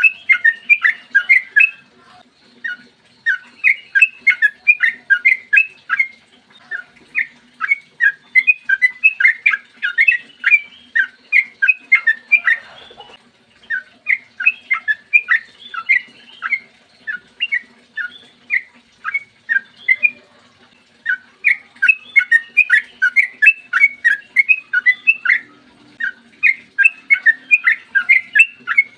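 Yellow-vented bulbul (trucukan) singing long, fast runs of short bubbly notes in quick phrases with brief gaps, with a longer pause about twelve seconds in.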